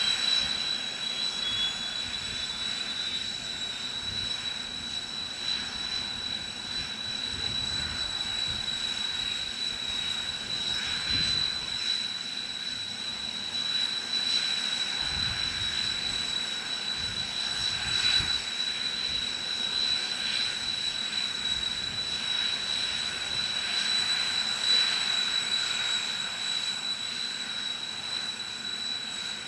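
Kawasaki T-4 jet trainers' twin F3 turbofan engines running on the ground, a steady high whine that rises slightly in pitch over the first couple of seconds and then holds.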